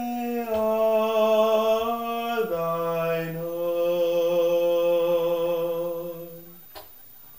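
A solo baritone voice singing the closing notes of a song, with no accompaniment heard: it steps down in pitch at the start and again about two and a half seconds in, then holds a low final note until it ends about six and a half seconds in. A single click follows shortly after.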